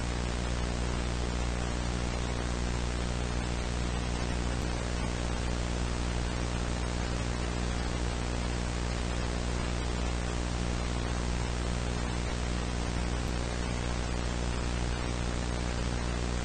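Steady static hiss over a low buzzing hum, unchanging throughout.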